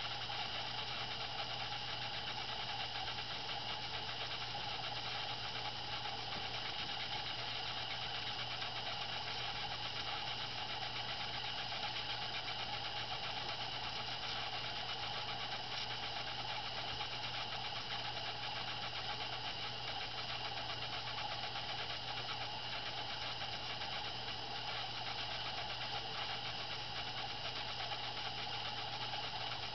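Steady mechanical hum, a low drone with a higher whir over it, unchanging and with no bird calls heard above it.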